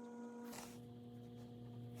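Faint steady electrical hum, its tone shifting slightly about half a second in.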